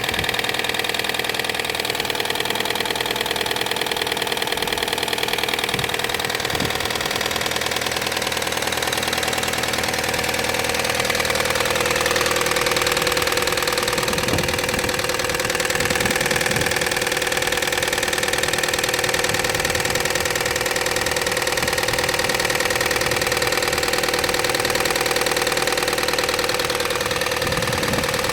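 A 2005 Opel Astra H's 1.6 petrol four-cylinder engine running steadily at idle, with a fast, even ticking through its sound: the strange engine noise that the owner sets out to fix.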